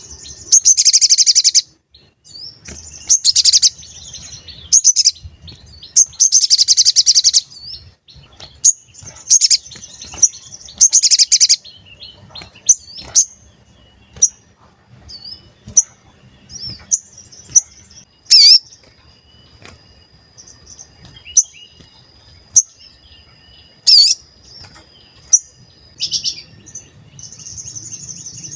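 Sogon bird singing its 'cuit cuit' song: fast bursts of high, rapidly repeated chirps about a second long, broken by single sharp notes and a thin held whistle.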